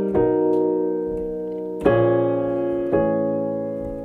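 Digital stage piano with a piano sound, both hands playing held jazz seventh chords: three chords struck in turn, each ringing and fading before the next. They are part of a glide progression (C minor 7, B major 7, B flat minor 7, A major 7), in which half the notes slide down a half step while the rest stay put.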